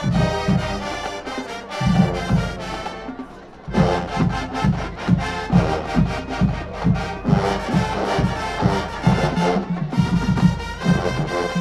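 Marching band brass and drums playing loudly over a heavy, steady drum beat. About three and a half seconds in the sound drops away briefly, then the full band comes back in.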